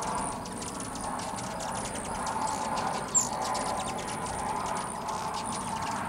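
Dozens of hummingbirds swarming a nectar feeder: a steady whir of many hovering wings under a constant stream of high, squeaky chips and twitters, with one sharper chirp about three seconds in.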